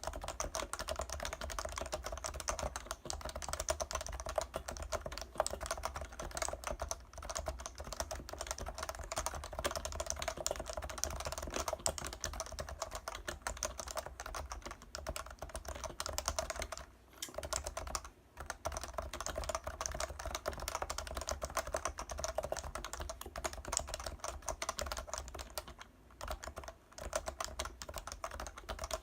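Leopold 660C keyboard with Topre switches being typed on continuously, a fast stream of keystrokes with brief pauses about 17 seconds in and again near 26 seconds.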